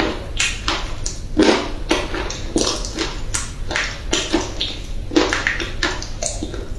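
Chunks of clay being bitten and chewed close to the microphone: an irregular run of crisp crunches, about two a second.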